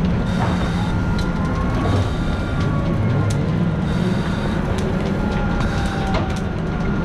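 Fire engine's diesel running steadily at pumping speed, heard as a continuous low rumble. A few sharp clicks and a faint whine that slowly rises and falls sit over it.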